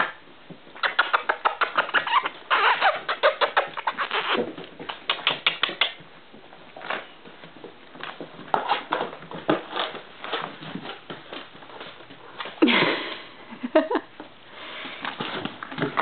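Boxer puppies' claws clicking and pattering on a hardwood floor as they scamper and wrestle, in quick runs of taps that come and go.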